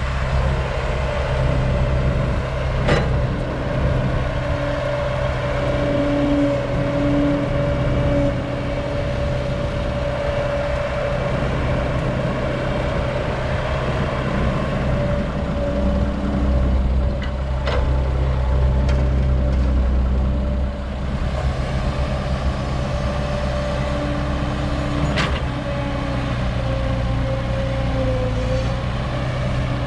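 Old Caterpillar excavator's diesel engine running steadily with a constant whine, the engine note rising and falling with the work, and a few sharp metallic clanks.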